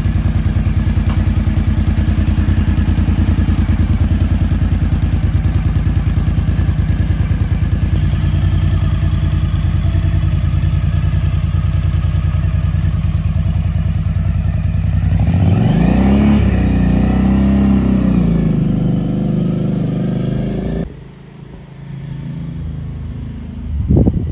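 Suzuki V-Strom DL1000's V-twin engine running steadily, then revving with a rising then falling pitch about fifteen seconds in as it pulls away. Near the end the engine gives way abruptly to a quieter, wind-like rush.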